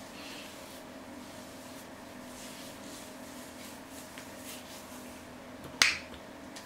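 Soft, faint swishes of a hairbrush drawn through wet curly hair coated with leave-in conditioner, over a steady low hum. Near the end there is a single sharp click, the loudest sound.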